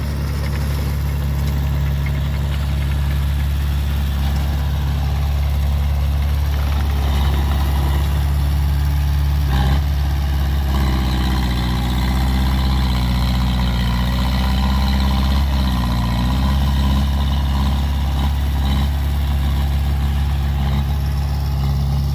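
Heavy diesel machinery engine running steadily with a low hum. About ten seconds in there is a single knock, then a second engine note joins for several seconds and dips briefly before fading.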